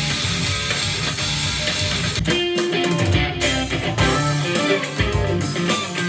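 LUXARS S-G62 electric guitar being played: a dense run of picked notes and chords, giving way about two seconds in to clearer, separate ringing notes with sharp attacks.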